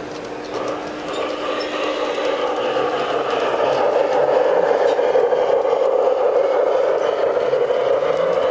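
LGB garden-scale model trains running on outdoor track: a steady rolling and motor noise that grows louder about three seconds in as the train comes close and then holds.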